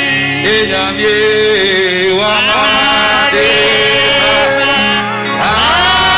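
A man leading a gospel song over a microphone, singing with instrumental accompaniment and a steady bass.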